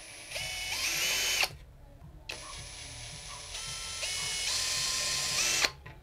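Handheld power drill run in two bursts, a short one of about a second and then a longer one of about three seconds, its motor whine stepping up in pitch as it speeds up. The bit is spotting a hole into the aluminium carriage through the limit switch's mounting hole.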